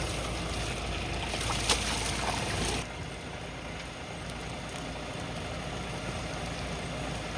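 Steady noise of water together with a low engine hum from the backhoe loader, dropping suddenly to a lower level about three seconds in.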